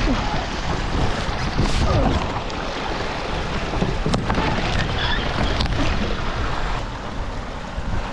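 Wind buffeting the camera microphone, with rustling of rain gear and bare twigs against the camera and a few sharp knocks, as a person steps out of a canoe onto a log.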